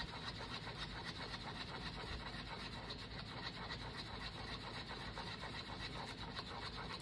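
Stir stick scraping around the inside of a paper cup, mixing resin with blue pigment: a steady, quick run of light scrapes.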